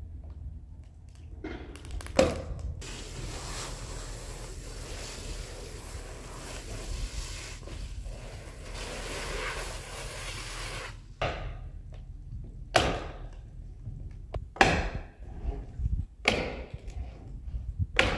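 Roof work on plywood sheathing: a stretch of steady rushing noise, then a series of sharp, irregular knocks and thuds on the wooden roof deck in the second half.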